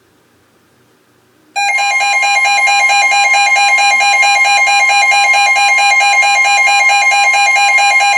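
Emergency Alert System attention tone: a loud, steady electronic alarm tone comes in suddenly about a second and a half in and holds, announcing a new alert.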